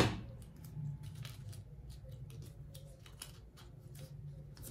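Paper pattern pieces being handled and pressed flat by hand on a table: a string of faint, short paper clicks and rustles over a low steady hum.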